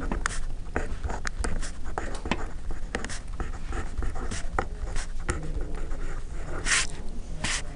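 Pen writing on paper: a run of short scratching strokes as an equation is written out by hand, with a short breath a little before the end.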